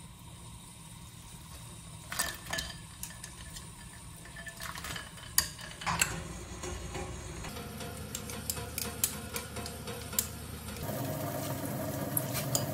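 Chopsticks clicking and scraping against a pan and a ceramic plate as cooked noodles are lifted out and then mixed with sauce. Scattered sharp clinks, with a run of small ones in the second half, over a low steady hum.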